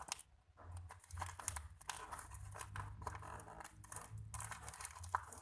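Paper and plastic crinkling and rustling in quick irregular crackles as a plastic-stuffed paper squishy is handled and its top glued shut.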